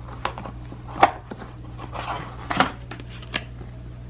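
A cardboard box and a folded paper leaflet being handled: about five crisp snaps and rustles as the leaflet is pulled out of the box and lifted up, over a steady low hum.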